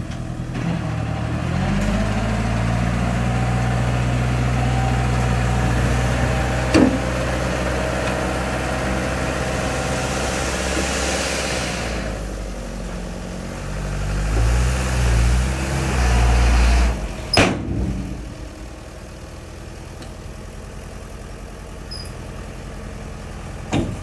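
Hyundai dump truck's diesel engine revving up and holding steady high revs while the tipper body is raised to dump its load of soil, then revving unevenly in short pulses. A sharp bang comes about seventeen seconds in, after which the engine settles to a quieter idle.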